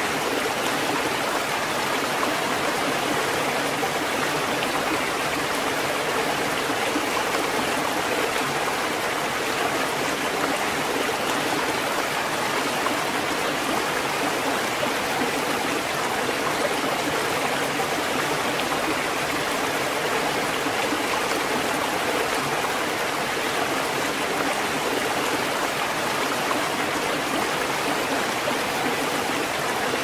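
Steady rushing water that holds an even level, with no surge-and-retreat rhythm of separate waves.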